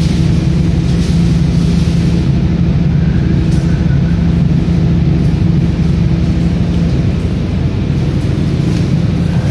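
Generator set engine running with a loud, steady low drone, easing slightly in level about three-quarters of the way through.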